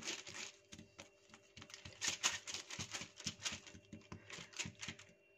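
Hands patting, slapping and spreading msemen dough flat on a countertop: a quick, irregular run of soft taps that stops near the end.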